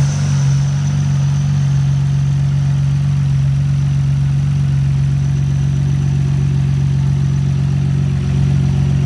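Twin-turbo RB26 straight-six of a Nissan Skyline GT-R R32, fitted with upgraded turbos, idling steadily.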